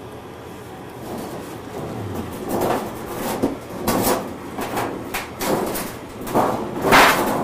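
Oxy-fuel cutting torch cutting through thick, rusty steel: a steady hiss that, from about a second in, turns into loud, irregular sputtering and crackling, loudest near the end.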